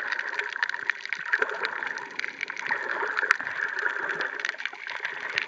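Underwater ambience over a shallow coral reef: a steady watery hiss full of dense, irregular crackling clicks.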